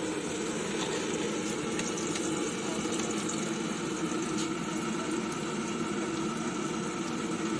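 Steady roar of a gas burner under an iron kadai, with samosas sizzling and crackling in the hot frying oil.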